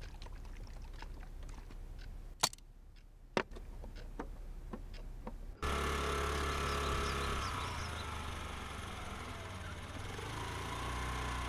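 Faint clicks and two sharp knocks, then about halfway a sudden change to a steady low hum of a motor vehicle engine running.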